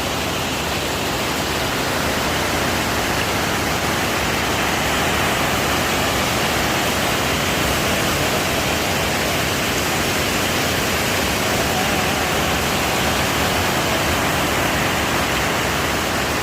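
A steady, even rushing noise with no distinct strikes or tones.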